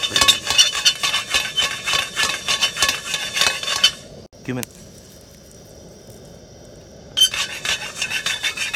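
Dry whole spices (black peppercorns, cardamom pods, cloves, star anise) rattling and skittering over a wide stainless steel pan for about four seconds. After a pause, a second burst of dry rattling near the end as cumin seeds go into the pan.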